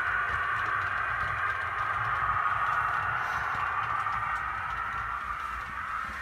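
Model trains running on the layout: a steady whirring hiss from motors and wheels on the track, with a low rumble underneath.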